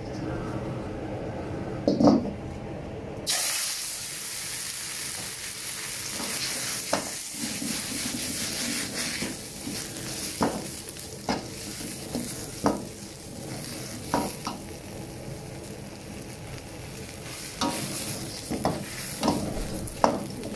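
Water spinach and garlic tossed into smoking-hot oil in a wok, hissing in a sudden loud sizzle about three seconds in that then keeps on steadily as it is stir-fried. A metal spatula scrapes and knocks against the wok every second or so. A single loud knock comes about two seconds in, before the vegetables go in.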